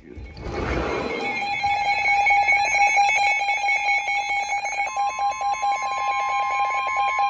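Several Midland and Reecom weather alert radios sounding their alarms together for a flash flood warning. A steady alert tone sets in about a second in, over fast repeating beeps, and a second, higher steady tone joins about five seconds in.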